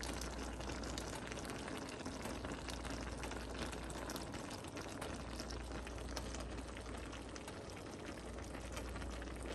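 A pan of pinakbet (pork and vegetables in a little broth) simmering, with faint steady bubbling and many small pops and ticks, over a low steady hum.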